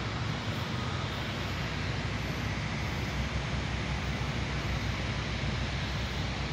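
Steady low rumble with a hiss over it, like a vehicle engine idling at a distance; no jingle plays.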